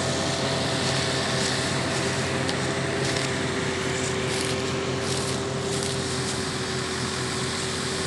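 An engine running steadily at a constant speed: a continuous drone with a fixed hum over a hiss.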